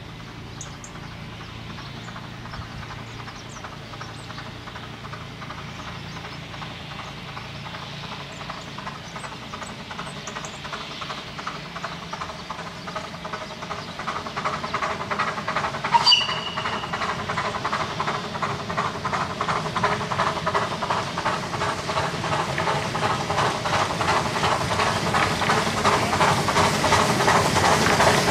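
Double-headed narrow-gauge steam train approaching, its locomotives' rhythmic exhaust beats growing steadily louder. There is a short whistle blast about halfway through.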